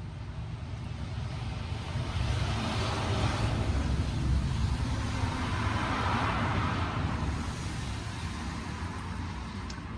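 A road vehicle passing by: a low rumble and tyre-like hiss swell to a peak mid-way, the hiss dropping in pitch as it goes past, then fade away.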